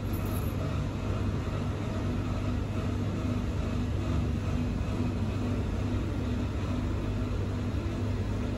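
Steady low machine hum with a faint wavering tone above it.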